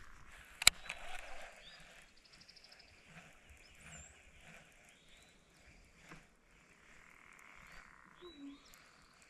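Small birds chirping faintly, with a quick trill about a second and a half in. A single sharp click comes just under a second in.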